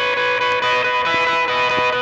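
Background music: a sustained guitar with effects, holding steady ringing notes.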